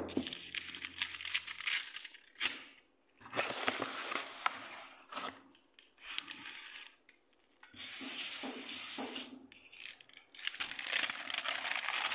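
Aluminium foil crinkling and rustling while hands press and shape dough over a foil-covered plate. It comes in several noisy bursts with short silent gaps between them.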